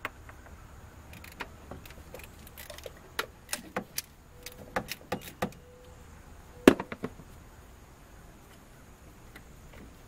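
Irregular sharp metallic clicks and clinks of a socket wrench, extension and the loosened 12 mm distributor hold-down bolt being handled, a dozen or so over several seconds, the loudest about seven seconds in.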